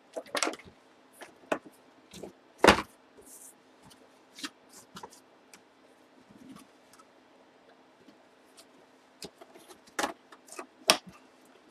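Handling noises on a tabletop as paper sheets and packaged items are set down and arranged: scattered light taps, clicks and rustles, with one louder thump a little under three seconds in and a few sharper clicks near the end.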